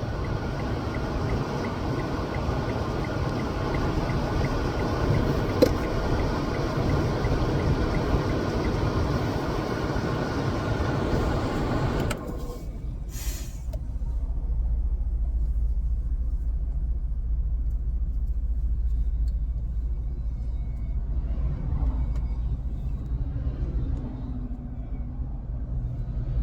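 Steady machinery noise with several held tones, changing suddenly about twelve seconds in to a deep, low rumble.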